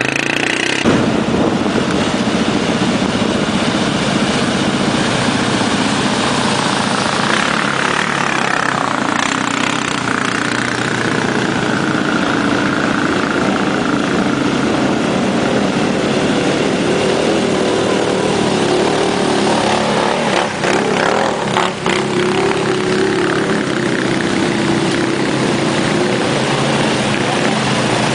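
ATV engine running continuously, revved so that its pitch rises and falls around ten seconds in, with a few brief knocks a little past twenty seconds.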